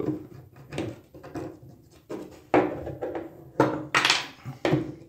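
Flat metal tool knocking and scraping against the inside of a stuck tub drain, about seven irregular knocks and scrapes, the loudest near the end, as it is pried at along cut lines to break the old drain loose.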